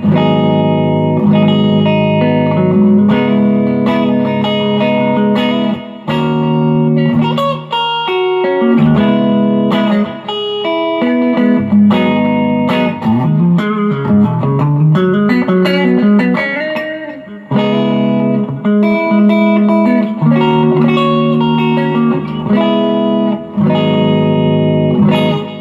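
M-Musi Virgo Fusion electric guitar played through an amp in the middle pickup position, both humbuckers on. Chords ring out, with a run of single moving notes in the middle and a few short pauses.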